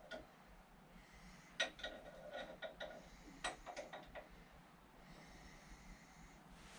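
Quiet hand work on a steering tie-rod assembly: a few light clicks and taps of tools and metal parts being handled, scattered through the first four seconds, over faint hiss.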